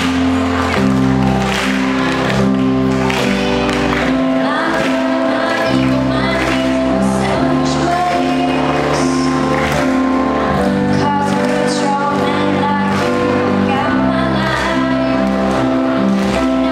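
A young woman singing solo into a handheld microphone over backing music, with held accompaniment chords beneath her voice.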